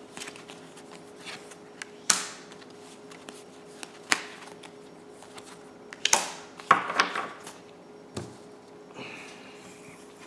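Tarot cards being dealt one at a time onto a wooden table: a short swish and tap about every two seconds, over a faint steady hum.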